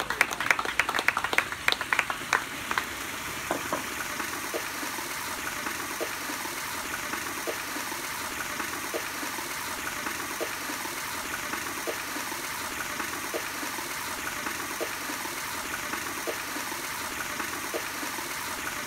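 Applause dying away over the first few seconds, then steady splashing of a wall fountain, a sheet of water spilling down a tiled face into a basin.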